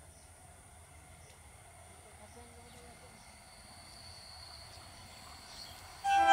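Insects buzzing steadily while an Indian Railways EMU local train comes on, its running noise slowly growing; about six seconds in, the train's horn sounds, a loud blast of several tones together.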